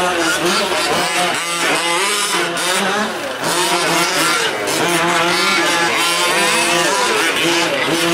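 Several 1/5-scale gas RC trucks' small two-stroke engines racing together, revving up and backing off so that a few overlapping engine pitches keep rising and falling.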